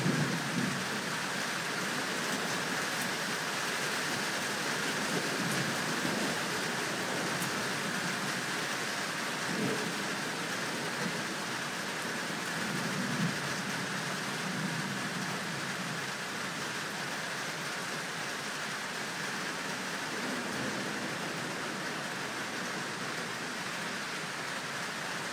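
Steady rain falling in a thunderstorm, an even hiss, with low rumbles of thunder coming and going several times.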